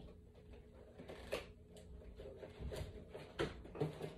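Cardboard Happy Meal boxes being handled by small hands: a few faint, scattered taps and rustles over a low room hum.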